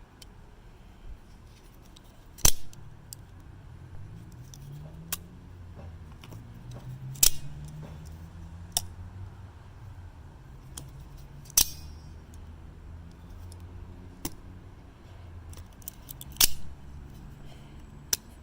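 Out-the-front automatic knife's blade being fired out and snapped back: sharp metallic snaps, four loud ones about every four to five seconds with quieter clicks between, over a faint low hum.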